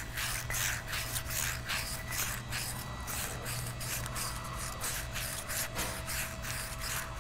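Abrasive cloth, wet with lubricant spray, rubbed back and forth inside a brake caliper's piston bore in quick even strokes, about three a second. It is sanding down a ridge of rust in the cylinder wall so the piston can slide freely.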